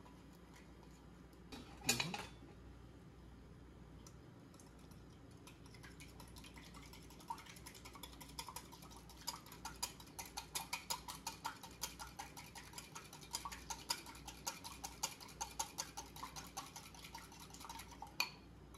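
A wire whisk beating eggs in a glass bowl: a rapid, even clicking of the wires against the glass that starts about six seconds in and keeps on until near the end. About two seconds in there is one sharp knock.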